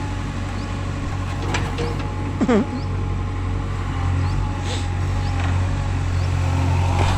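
Tractor engine running steadily, a low diesel hum heard from the tractor. A short sweeping call rises and falls about two and a half seconds in.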